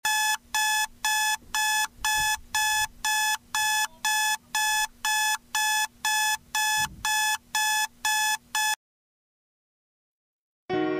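Electronic alarm beeping, a short pitched beep about twice a second, then cutting off suddenly near the end. Soft piano notes begin just before the end.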